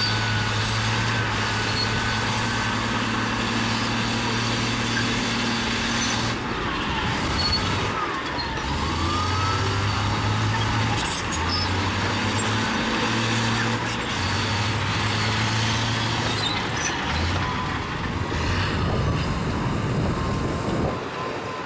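Bulldozer's diesel engine running under load, its pitch stepping up and down every few seconds as it works, with a few faint high squeaks.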